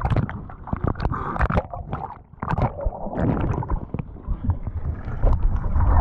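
Sea water splashing and gurgling around a swimmer's camera as it goes under the surface and back up, with many short, sharp splashes and muffled churning from underwater.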